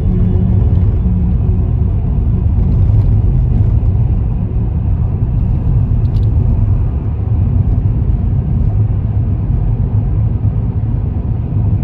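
Car driving at a steady speed: a low, even rumble of engine and tyres on the road.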